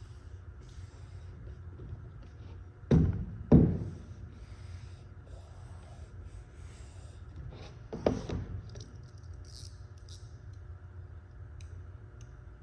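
Wood-grain vinyl wrap being handled and rubbed down onto a diffuser: faint rubbing and scratching, with three sharp knocks, two close together about three seconds in and one about eight seconds in.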